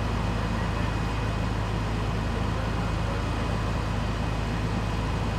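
Idling fire engine and ambulance: a steady low engine rumble, even throughout.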